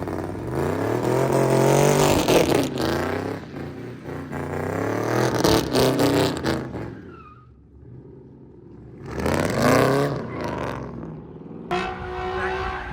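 A car engine revs hard several times, its pitch climbing and dropping, with a quieter lull about two-thirds of the way through. It picks up again sharply near the end.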